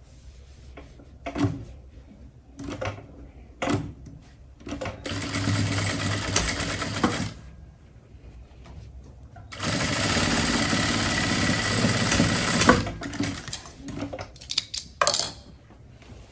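Electric sewing machine stitching a dart in the back piece of a pair of trousers, in two runs of about two and a half and three seconds. Separate clicks and knocks come before and after the runs.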